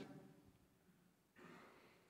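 Near silence: a pause in a talk, with a faint short breath about a second and a half in.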